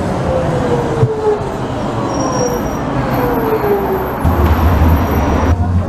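Hiroshima Electric Railway 3800-series articulated tram drawing into a stop, its traction motors whining in a falling pitch as it slows over a steady rumble of wheels. About four seconds in, a louder low rumble takes over.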